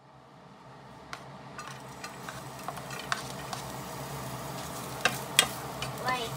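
Chopped garlic sizzling in hot oil in a nonstick frying pan, fading up from silence over the first two seconds. A wooden spoon stirs it and knocks sharply against the pan several times, loudest about five seconds in.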